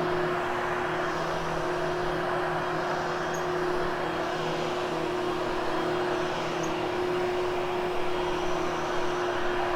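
Vacuum cleaner running steadily with a constant motor hum, grooming and lifting the pile of a freshly cleaned carpet.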